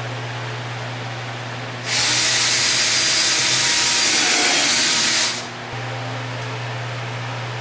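A loud, steady hiss starts about two seconds in, lasts about three and a half seconds, then stops, over a low steady hum.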